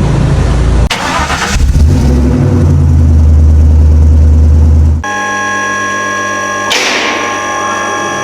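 A car engine running steadily for about five seconds, with a short hiss about a second in. It is cut off abruptly and replaced by a steady whine at several fixed pitches, with a burst of hiss near the end.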